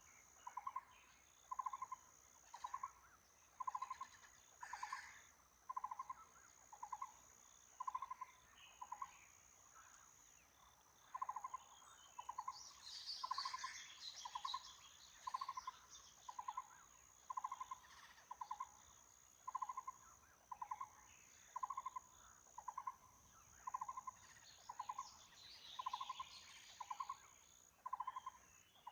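Taiwan barbet calling: a short, low, rapidly pulsed note repeated about once a second, pausing briefly near the middle. A steady high insect drone runs underneath, and other small birds chirp twice in the background.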